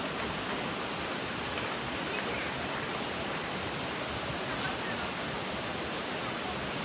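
Steady rushing of a mountain valley stream.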